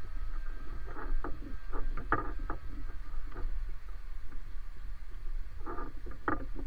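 JLG E450AJ electric articulated boom lift moving its boom: a steady low hum from its electric hydraulic drive, with clusters of short creaks and clicks about a second in, around two seconds in and again near the end.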